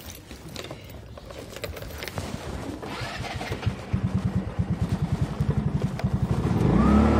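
A motor scooter being started: a few clicks and handling noises, then the electric starter cranks the engine in a fast, even pulsing for about three seconds. Near the end the engine catches and settles into a steady idle.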